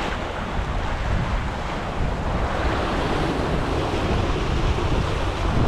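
Ocean surf breaking and washing over the rocks in a steady rush, with wind buffeting the microphone as a low rumble.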